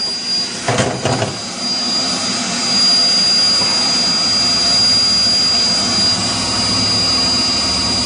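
Ethos 1600 microwave digestion labstation's fans blowing air steadily, with the unit's continuous high-pitched beep sounding over the fan noise.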